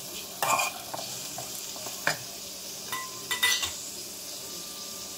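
Sliced onions, garlic, green chillies and whole spices sizzling in oil in a steel kadai. A metal spoon scrapes and clinks against the pan several times over the first few seconds as the mix is stirred. After that only the steady sizzle is left.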